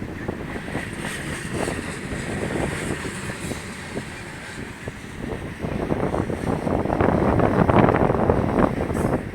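Train rolling past, its wheels clacking over the rail joints in a steady rumble, with wind buffeting the microphone; the clatter grows louder over the last few seconds.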